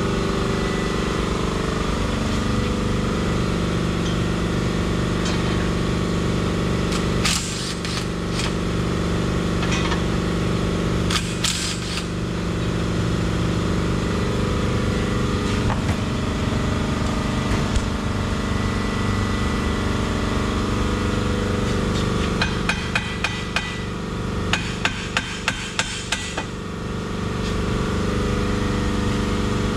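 Hand tools on the drive shaft bolts under a lifted van: a few sharp metallic clinks, then, past the two-thirds mark, a run of quick clicks about three a second for some four seconds, over a steady mechanical hum.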